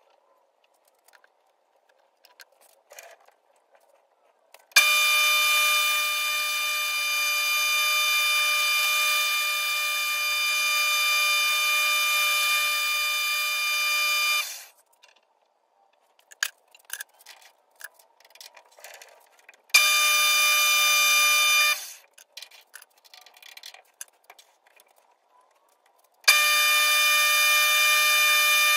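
Metal lathe running in three spells with a steady, high whine, each starting and stopping abruptly, the last as a drill is brought up to brass stock in the chuck. Small clicks and taps in the pauses between runs.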